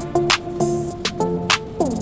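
Background music: melodic notes over a steady beat, with a falling pitch slide near the end.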